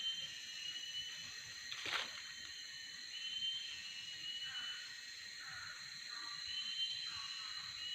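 Tropical forest ambience: a steady high-pitched insect drone under short, repeated whistled bird calls. A single sharp click comes about two seconds in.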